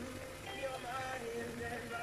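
Background pop song with a singing voice over a steady accompaniment.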